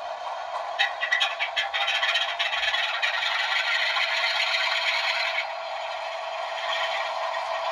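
Diesel locomotive sound from a model train's DCC sound decoder, played through the loco's small speaker with no bass. It runs steadily, with a rattling, scraping burst from about a second in that stops suddenly about five seconds in.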